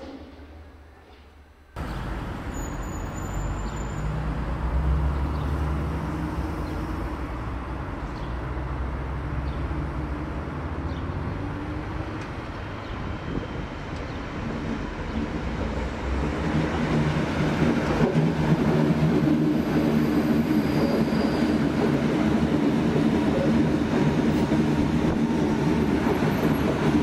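Berlin U-Bahn train running: a steady rail rumble with a low motor hum, cutting in abruptly a couple of seconds in and growing louder over the second half.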